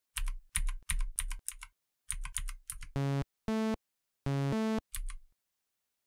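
Computer keyboard typing in quick bursts of key clicks. Three flat electronic beeps come between about three and five seconds in, the last one stepping to a second note, before a last short run of typing.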